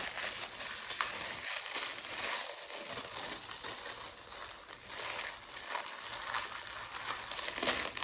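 Crinkling and rustling of packaging as a pack of Roman candles is handled, with a few light knocks and a sharper one near the end.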